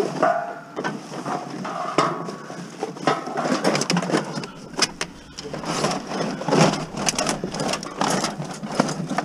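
Bagged scrap and plastic items being shoved and crammed into a fully packed van: plastic bags rustling, plastic crackling and crunching, with repeated knocks and bumps.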